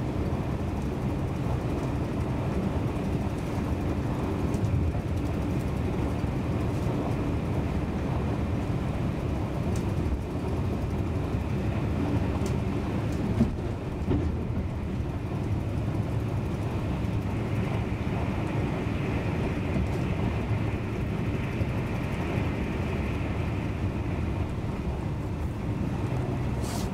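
Steady running rumble of an SJ Intercity train heard from inside a passenger coach at speed: wheels on the rails and carriage noise. A faint high whine grows louder in the second half, and there is one brief knock about halfway through.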